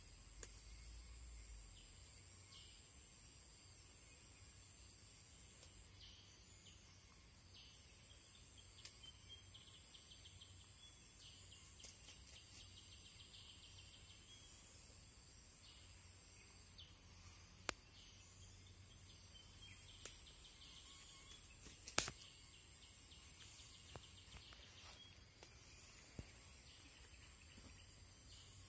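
Steady, high-pitched chorus of insects such as crickets, with a few sharp clicks, the loudest about 22 seconds in.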